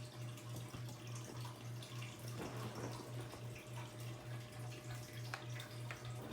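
A steady low hum that pulses evenly about three times a second, with a few faint clicks and rustles over it.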